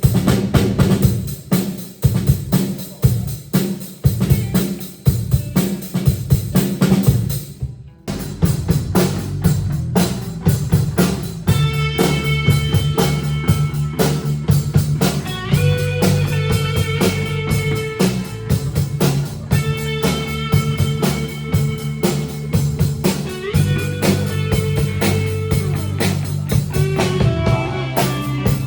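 A blues band sound-checking. A drum kit keeps an even beat for about eight seconds, then stops briefly. The band comes back in with drums, bass and guitar playing a steady groove.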